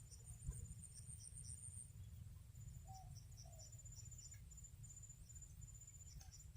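Faint insect chorus: a steady high-pitched trill with short repeated high chirps, and two brief lower calls about three seconds in, over a low rumble.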